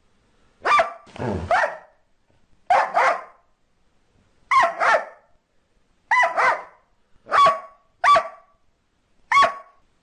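Border Collie barking: sharp, repeated barks, often in quick pairs, recurring every second and a half or so. A longer, rougher bark comes a little after one second in.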